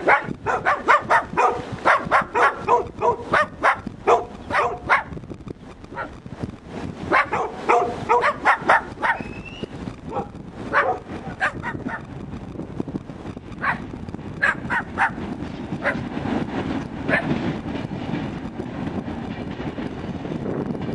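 Dogs barking over and over in runs of quick barks, with short pauses between runs. In the last few seconds a passing passenger train's rumble builds underneath.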